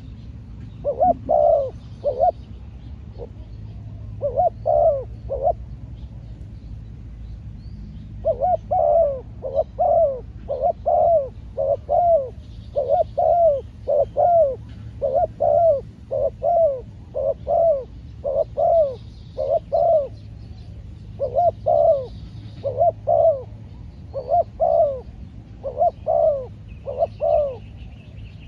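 Spotted doves cooing over and over, each phrase made of two or three short arching coos. There are two phrases in the first few seconds, then the cooing runs almost without a break from about eight seconds in.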